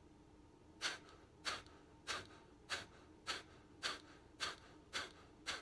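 Kapalbhati pranayama: a man's short, forceful exhalations through the nose, pumped out by the belly. About nine evenly spaced puffs, a little under two a second, beginning about a second in.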